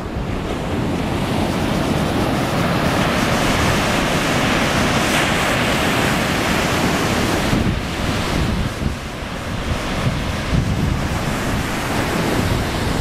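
Ocean surf breaking and washing up a sandy beach, with wind buffeting the microphone. The wash is loudest in the first half and drops back about seven and a half seconds in.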